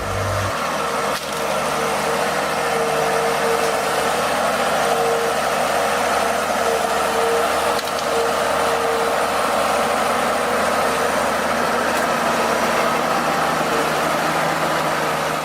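Diesel engine of a heavy forestry machine running steadily under load, with a steady whine held through it.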